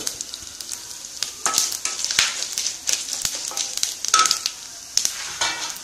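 Cumin seeds, coriander seeds, peppercorns and dals sizzling in a little oil in a pan, with a steady hiss and irregular scrapes and knocks from a spatula stirring them.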